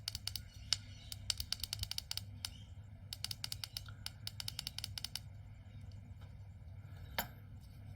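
A tiny SMD tactile switch, fitted as the new button in a car alarm remote, being pressed over and over: rapid runs of light clicks, 'clickety click'. A single louder tap comes near the end.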